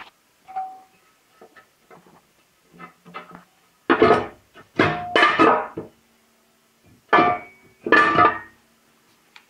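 Steel parts inside an MPM DS 14 kW stove's firebox knocked and rattled by hand. A few light taps come first, then four loud metallic clanks in two pairs, starting about four seconds in, each leaving a clear ringing tone.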